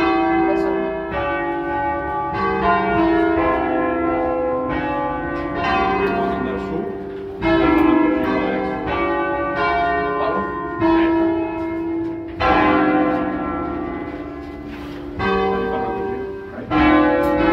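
A ring of five bronze church bells in C, cast by the Barigozzi brothers of Milan in 1940, rung by hand with ropes: the swinging bells strike one after another, a stroke every second or two, their long ringing overlapping. Heard from inside the bell tower.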